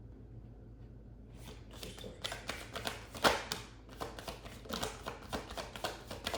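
Tarot cards being shuffled by hand: a quick run of papery flicks and snaps starting about a second in, with one sharper snap near the middle.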